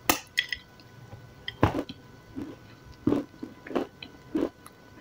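Close-miked chewing and biting of soaked grey clay: a string of short wet mouth sounds, roughly one every half second, picked up on a lapel microphone.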